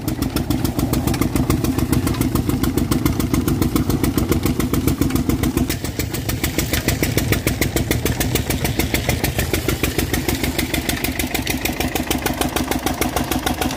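Single-cylinder stationary diesel engine running steadily with a rapid, even thump, driving a sugarcane crusher's roller mill.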